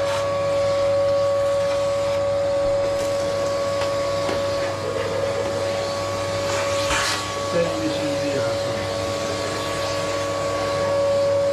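Electric vacuum cleaner running steadily, its motor holding one even whine.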